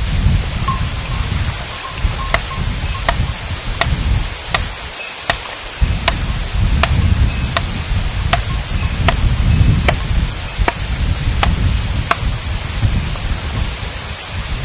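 A hammer striking rock in a steady rhythm, about fourteen sharp strikes roughly three-quarters of a second apart, stopping near the end. This is the splitting of stones to look for fossils. A low, gusting rumble runs underneath throughout.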